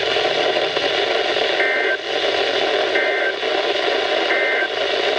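Weather radio receiver hissing with static, then three short identical warbling data bursts of two alternating tones, a little over a second apart. This is the SAME end-of-message code that closes an emergency alert broadcast.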